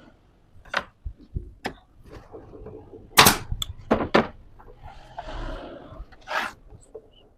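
A series of sharp knocks and thunks of wooden parts being handled in a small workshop, the loudest about three seconds in. About a second of scraping noise comes before a last knock.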